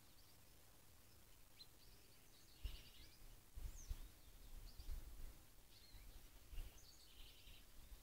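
Small songbirds chirping faintly, with short high calls scattered throughout. Low rumbling bumps come through the middle.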